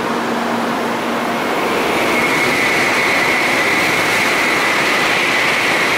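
A Tokaido Shinkansen Nozomi passing through the station at speed without stopping: a loud, steady rushing noise that grows louder about two seconds in, when a high, steady whine joins it.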